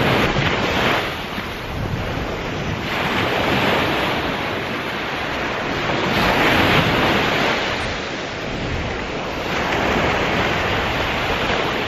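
Surf breaking and washing up a sandy beach, swelling and easing several times, with wind buffeting the microphone.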